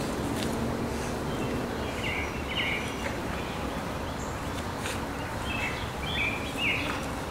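Steady outdoor background noise with a bird's short chirps, a couple about two seconds in and several more from about five and a half seconds on. A few faint clicks.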